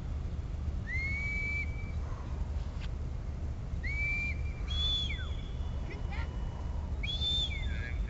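Shepherd's whistle commands to a working sheepdog: three short whistled calls, about a second in, around four to five seconds in and near the end. Each is a held high note that slides up into the note or drops away at its end, over a steady low rumble.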